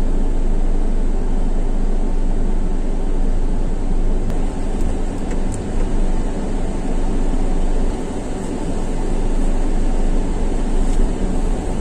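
Steady engine and road noise heard from inside the cabin of a Hyundai i20 automatic hatchback as it drives off, heaviest in a deep low rumble, easing slightly about eight seconds in.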